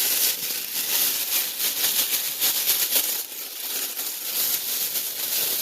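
Thin plastic cooking bag crinkling and rustling steadily as it is handled and opened up by hand.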